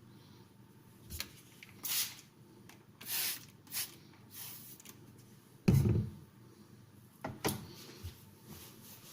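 CTS XHP knife blade stroked across a soft slate natural hone with slurry, giving a handful of separate short scraping swishes. A louder dull thump, like the knife or stone being bumped, comes a little past the middle.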